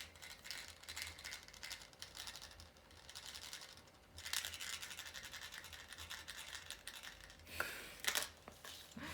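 Plastic parts of a small toy robot vacuum cleaner being handled and fitted together: a run of scratching, rubbing and light clicks, with louder scrapes about four seconds in and twice near the end.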